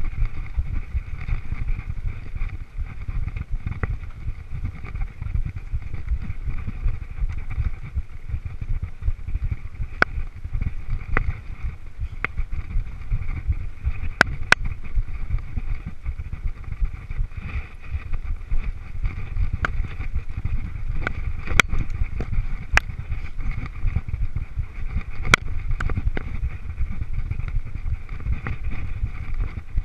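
Mountain bike ridden fast down a bumpy forest singletrack, heard from a camera on the rider: a constant low rumble of wind and vibration on the microphone, with scattered sharp clicks and knocks of the bike rattling over the trail.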